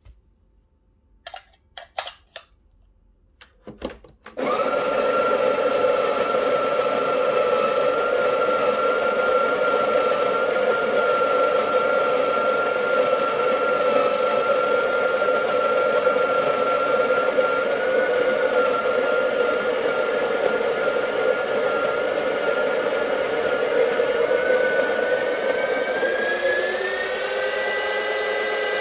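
A few clicks and knocks as the portafilter is locked into a Breville Barista Pro. About four seconds in, the machine's pump starts and runs steadily, a loud hum, pulling an espresso shot through a dual-wall pressurized basket. Its pitch rises over the last few seconds.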